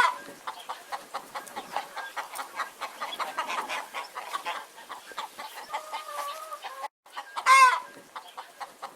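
Hens clucking in a rapid run of short clucks, with one loud squawk about seven and a half seconds in.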